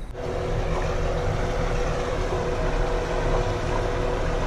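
Boat engine running steadily, heard from inside the boat's cabin, a steady noise with a constant hum.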